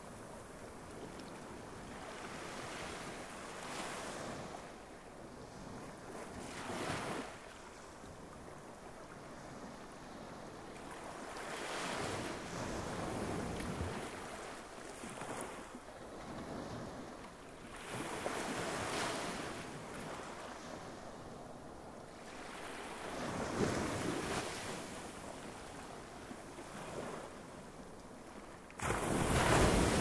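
Sea waves breaking and washing on the shore, swelling and ebbing every four to six seconds. A louder wave breaks suddenly near the end.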